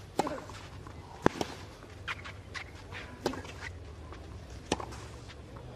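Tennis ball struck back and forth in a baseline rally on clay: a sharp racquet hit every second or so, with softer ball bounces and a player's short grunt on the first shot.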